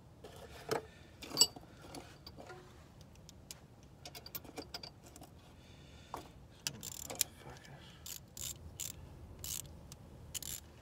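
Scattered metallic clicks and clinks of hand tools and rusty suspension parts being handled, with two sharper knocks about a second in and a denser run of clicks in the second half.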